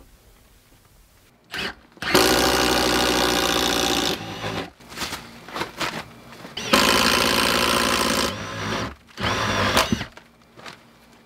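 A power drill boring up into the wooden floor framing to pass the heater wire through. It runs in three long pulls of one to two seconds each, with short stop-start bursts between, and the motor pitch rises as it spins up.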